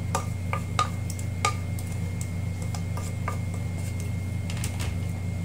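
A wooden spatula knocks and scrapes against a plastic bowl as grated carrots are pushed into a stainless steel mixing bowl. The sound is a run of light clicks, most of them in the first second and a half, over a steady low hum.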